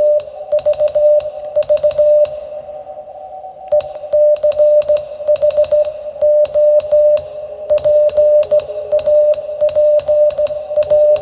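Morse code (CW) as a single mid-pitched tone keyed on and off in dots and dashes, with a light click at each key-down and key-up. The sending pauses for about a second and a half a couple of seconds in, then carries on.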